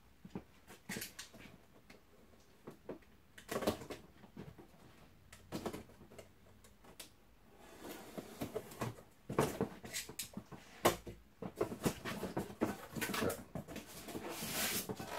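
Cardboard box being opened by hand: scattered scrapes, taps and rustles of the flaps and packing, sparse at first and busier in the second half.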